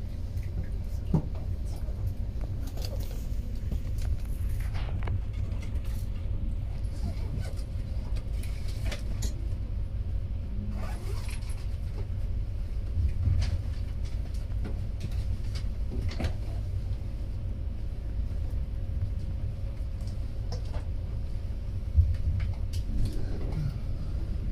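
Passenger train running at speed, heard inside the carriage: a steady low rumble with a faint steady hum, and scattered light clicks and knocks.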